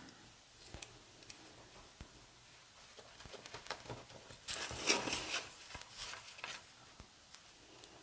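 Faint taps and rubbing of a card being handled on a wooden table, with a short run of scratching strokes about halfway through: a ballpoint pen drawing a small corner guide on thick card.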